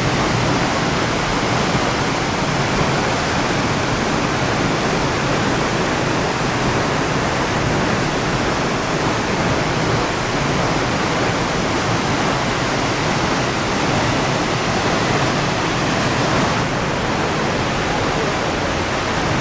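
La Fortuna waterfall: a steady, loud rush of falling water.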